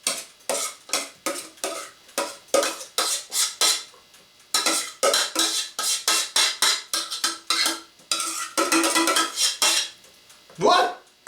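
A metal spoon knocking and scraping against a cooking pot, many quick clinks in a row, as the freshly cooked oatmeal is spooned out.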